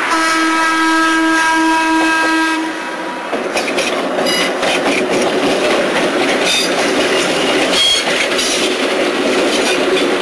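Electric interurban trolley car's air horn sounding a long chord that ends about three seconds in, followed by the car rolling along the rails with its wheels clicking on the track as it approaches.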